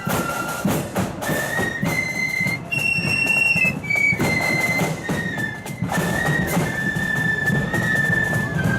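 Marching flute band playing a tune: flutes carrying a high melody of held notes over a steady beat of drums.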